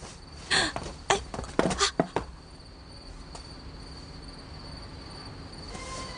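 Crickets chirping steadily, a faint thin high tone. In the first two seconds there are a handful of short, sharp sounds of movement.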